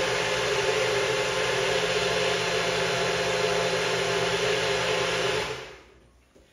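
Electric blender running steadily as it purées cooked peach and date jam, then switched off about five and a half seconds in and spinning down.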